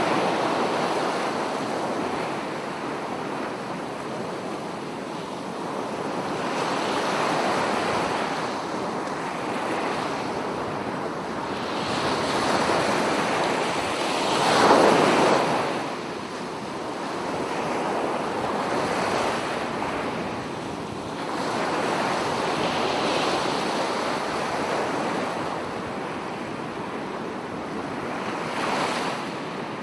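Ocean waves breaking and washing on a shore, the surf swelling and ebbing every few seconds, with one larger wave breaking about halfway through.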